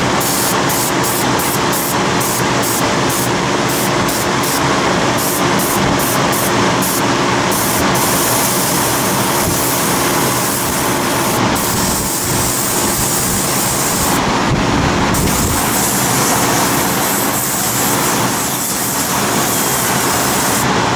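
Airbrush spraying paint with a continuous hiss of compressed air, over a faint steady low hum.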